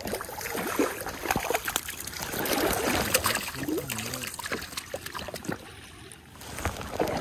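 Stream water splashing and sloshing as a hooked brown trout is landed by hand, with many short sharp clicks and rustles of handling. It goes quieter for a moment about six seconds in, then picks up again.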